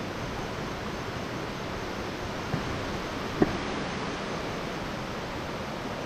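Steady rushing of a waterfall. Two small knocks about two and a half and three and a half seconds in.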